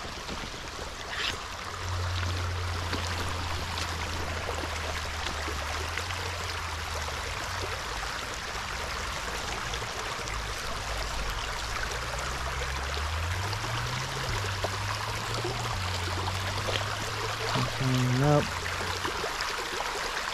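Creek water running steadily, a constant rushing hiss. Underneath, a low hum starts about two seconds in and wavers in pitch later on.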